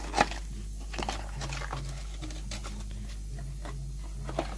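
A cardboard parts box set down on a concrete floor with a single light knock, then faint handling clicks as the box is opened, over a faint low hum.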